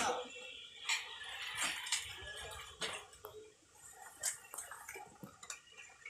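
Crackling, snapping and rustling of fallen banana leaves and stalks being pulled and dragged aside by hand, with a sharp crack about once a second.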